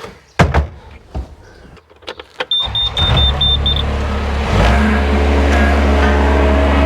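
A sharp knock, then six short high beeps, then a vehicle engine starts about three seconds in, picks up briefly and settles into a steady running note.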